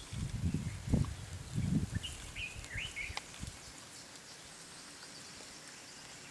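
Low rumbling bursts in the first two seconds, then a wild bird giving a few quick chirps that rise and fall, over faint outdoor hiss.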